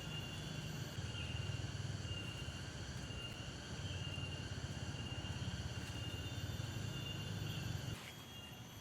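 Forest night insects, crickets or similar, singing in steady high continuous tones over a low rumble. The rumble cuts off suddenly near the end.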